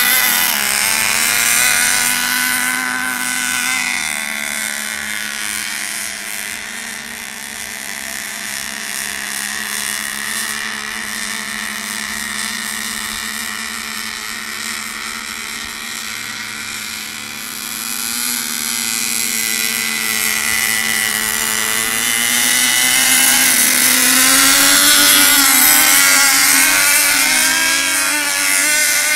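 Radio-controlled racing boats running laps at full throttle, a buzzing engine note that wavers in pitch. It fades as the boats go round the far side of the pond and rises again near the end as they come back past.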